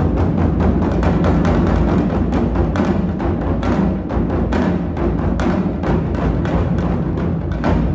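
Japanese taiko drum ensemble playing a fast, driving rhythm of many closely spaced strikes, deep drum booms mixed with sharper hits.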